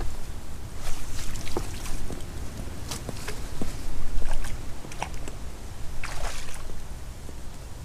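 Water splashing and sloshing in short bursts as a hooked bream is drawn in to the landing net at the bank, over a steady low rumble of wind buffeting the microphone.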